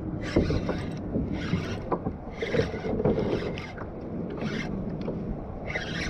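Kayak on the water with rhythmic swishing strokes about once a second, mixed with light knocks and creaks from the hull and gear.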